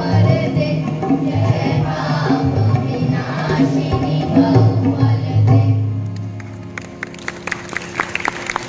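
Children's choir singing with tabla accompaniment, ending on a long held note that fades out about six seconds in. Applause then starts and carries on to the end.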